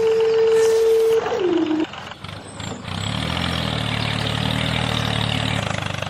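A vehicle horn-like tone held steady, dropping in pitch and stopping about two seconds in. Then a truck-type engine starts up and runs steadily.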